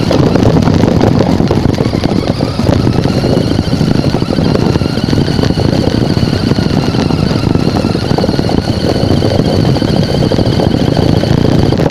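A small vehicle's motor running steadily, with a wavering high whine over a rough rumble.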